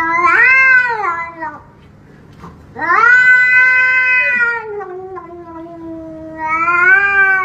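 A grey cat yowling in long, drawn-out wails that rise and fall in pitch, three in a row with short breaks between them.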